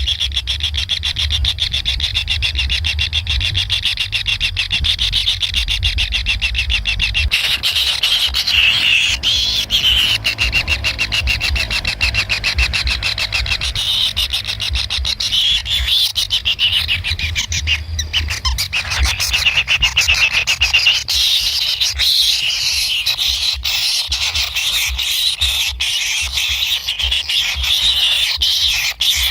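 Kingfisher chicks begging for food in the nest: a continuous, high, rapidly pulsing chatter of calls. A low rumble runs under it for the first several seconds.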